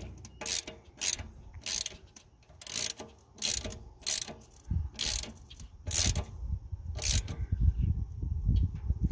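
Ratchet wrench clicking in short strokes, roughly two a second at first and spacing out, as bolts on a hay baler's tin cover are turned. A low rumble sits underneath in the second half.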